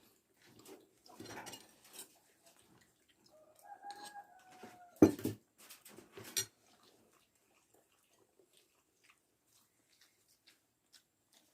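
A rooster crows once, a thin held call lasting about a second and a half, about three seconds in. Two loud thumps follow, about a second apart.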